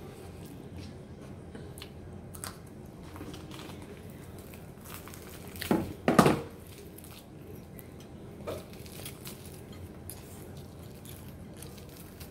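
Eating by hand at a table: fried chicken being handled and pulled apart with the fingers, with small crinkles and light clicks against a plate. A louder brief clatter comes about six seconds in.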